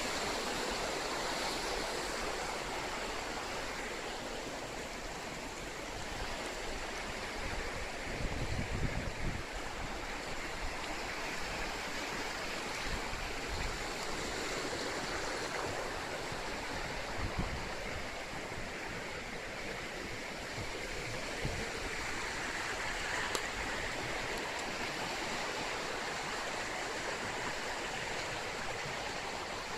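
Rushing water of river rapids, a steady, even roar, with a few short low rumbles about nine seconds in and again near the middle.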